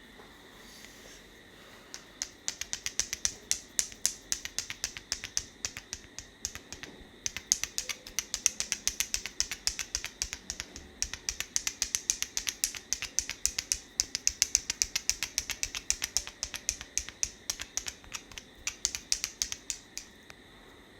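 Rapid, sharp hand taps of a percussive head massage, several a second. They start about two seconds in, break off briefly near the seventh second, and stop shortly before the end.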